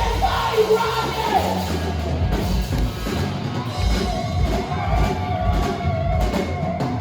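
Live band playing amplified music: a singer holding and sliding through long notes over bass guitar and drums.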